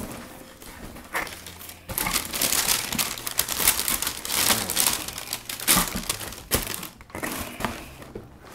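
Tissue paper crinkling and rustling as it is pulled back inside a cardboard shoebox, loudest in the middle, followed near the end by a few sharp handling knocks as a sneaker is lifted out.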